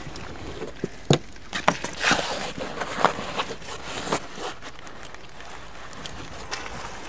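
Rustling fabric and scattered clicks and knocks from handling a dog's fabric car-seat cover and leash, most of them in the first half.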